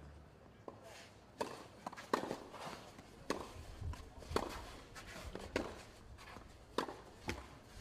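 Tennis rally on a clay court: sharp pops of racket strings striking the ball back and forth about once a second, with softer ball bounces and players' footsteps on the clay between them.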